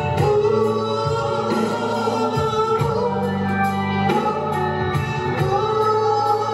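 A live soul and blues band playing with singing: drums keeping a steady beat under bass, electric guitar and keyboards.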